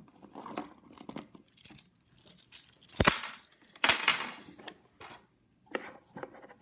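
Toy keys and parts of a Melissa & Doug wooden doorbell house being handled: scattered clicks and rattles, with one sharp knock about three seconds in.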